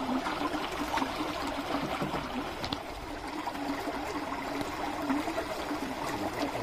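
Steady rush of running, trickling water, with a faint low hum beneath it.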